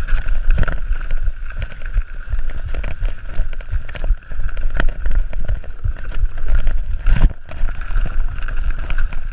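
Mountain bike descending a bumpy dirt trail, heard from a rider-mounted camera: heavy wind buffeting on the microphone, with constant rattling and knocks from the bike over roots and bumps and a steady high whir underneath.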